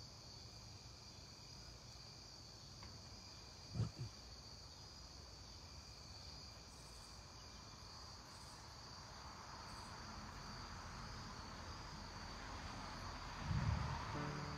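Crickets chirping steadily in a high, even band. A short low thump comes about four seconds in, a rushing hiss slowly builds from the middle on, and a louder low thump comes near the end.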